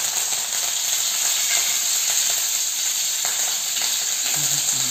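Fresh curry leaves sizzling steadily in hot gingelly oil with mustard and fenugreek seeds in a stainless steel kadai, stirred with a wooden spatula.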